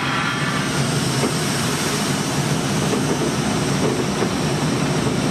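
Steady running noise of a German class E94 electric locomotive heard from on board as it rolls along the track.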